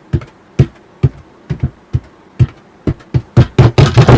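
Foley footsteps: shoes stepping on a stair prop, one step about every half second, quickening into rapid steps near the end.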